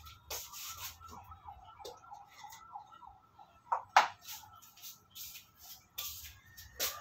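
Household handling noises: repeated scuffs and rustles as a person moves about in slippers and handles things on a shelf, with one sharp knock about four seconds in and a smaller one near the end, over a thin steady high tone.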